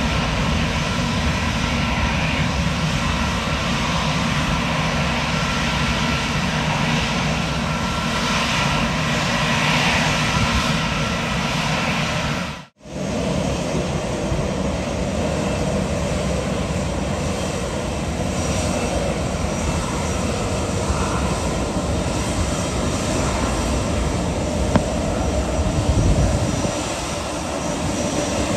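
Airliner engines running loud and steady as aircraft move at the airport. The sound cuts out for a split second about a third of the way in and then resumes, with a deeper rumble swelling near the end.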